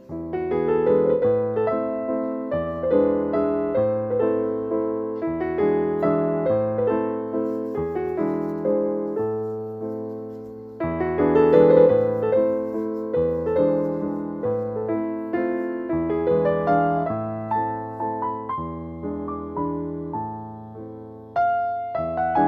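Background piano music: a steady run of notes over low chords, with a new phrase starting about halfway through.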